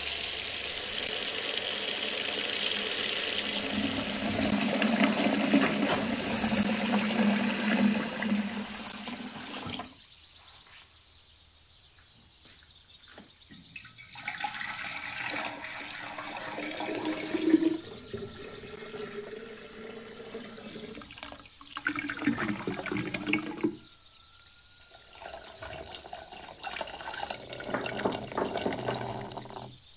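Kitchen tap running steadily for about ten seconds. After a short pause, water is poured into a glass jar in several pours with brief breaks, filling the jar of olives for brine.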